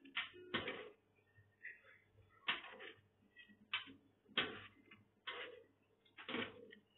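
A strainer ladle scooping boiled pork balls out of a pan, making about seven short knocks and scrapes against the pan.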